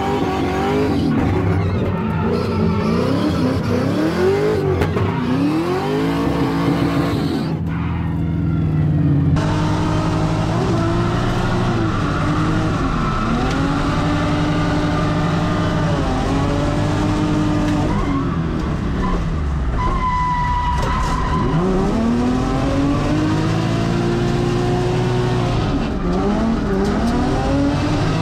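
A car being drifted, its engine revving up and dropping again and again as it slides sideways, with tyres squealing.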